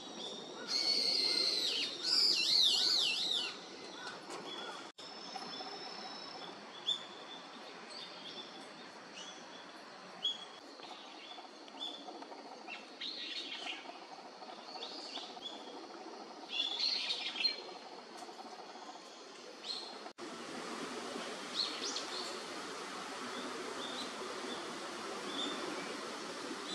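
Birds chirping: a burst of loud, rapid, up-and-down twittering in the first few seconds, then scattered short chirps over a steady background of outdoor noise.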